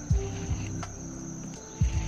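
Background music with a steady high drone of insects behind it, and a few short low thumps.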